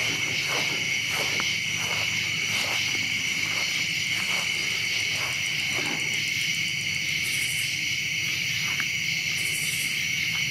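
Steady, high-pitched chorus of crickets and other night insects chirring, with faint soft rustles over the first six seconds and two short, very high buzzes later on.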